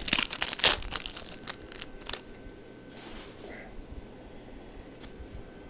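A trading-card pack's wrapper crinkling as it is torn open, loud and crackly in the first second, followed by a few sharp crackles and then only faint handling sounds.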